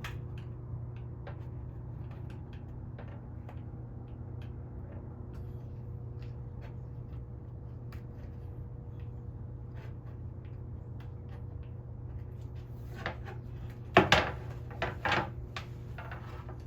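Small clicks and taps of a screwdriver pressing new screen mesh into the groove of a window screen frame, with a few louder knocks and rattles of the frame near the end, over a steady low hum.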